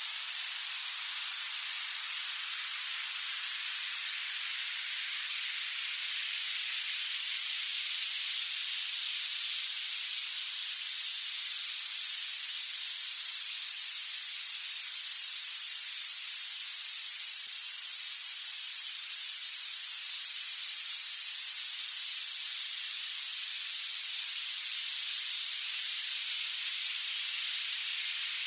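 Violet noise: a steady, high, thin hiss whose energy rises toward the top of the hearing range, with no bass or midrange at all.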